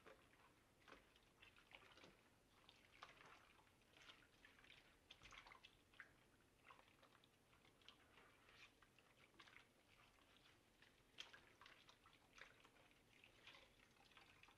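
Faint squishing and sloshing of soapy water as a padded fabric motorcycle helmet liner is kneaded and squeezed by hand in a bowl, in many short, irregular splashes.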